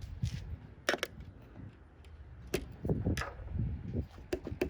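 Scattered clicks and knocks of a TV's built-in speaker and its mounting being handled and pushed at to free it, about five sharp knocks with a small cluster near the end.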